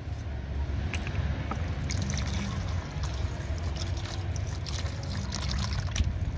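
Scissors snip open a carton, with a few sharp clicks about a second in. Then soy milk pours from the carton into a plastic bucket of beaten eggs, a steady liquid trickle and splash.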